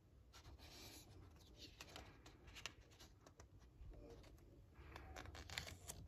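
Faint paper rustling and soft clicks as a hardcover picture book's page is turned by hand.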